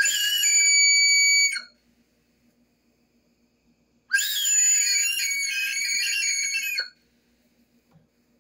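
Two loud, shrill, high-pitched cries with a wavering pitch: the first lasts about a second and a half, the second starts about four seconds in and lasts about three seconds.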